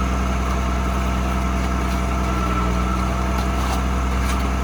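Diesel engine of a concrete boom pump truck running steadily, with an even low hum.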